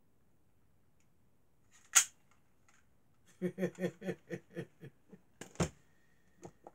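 A single sharp snap from a spring-loaded airsoft pistol, followed by a run of short laughs that fade out, and a second, weaker click about two seconds after the laughing starts.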